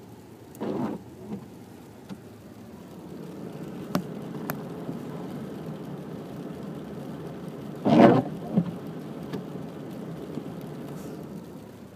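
Michelin windshield wiper blade sweeping across the glass on an intermittent setting: two short, loud rubbing passes about seven seconds apart, each followed by a smaller bump, over a steady car-cabin hum. The blades have turned noisy after about three months of use.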